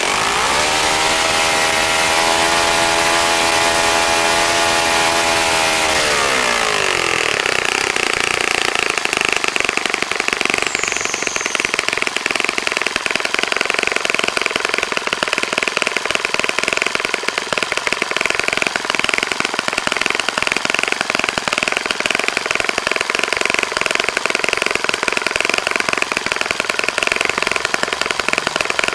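A freshly rebuilt Saito FA-65 four-stroke glow engine turning a 12x6 propeller on its first test run. It is throttled up sharply from idle near the start, holds high revs for about five seconds, then drops back and runs on steadily. By the end it is idling at about 2,700 rpm.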